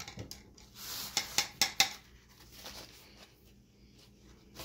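A quick run of light clicks and clatters in the first two seconds as paintbrushes are handled and a bigger one picked out, followed by a faint rustle of a paper towel wiping a brush.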